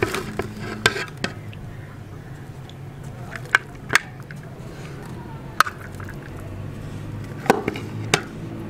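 A metal spoon clinking against a plate about eight times, in short sharp knocks spread unevenly, as rice is scooped and served onto it.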